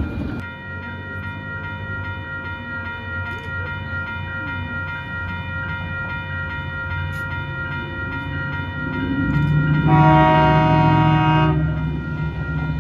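Grade-crossing warning bell ringing steadily over the low rumble of a train. About ten seconds in, a train horn sounds for about a second and a half, the loudest sound.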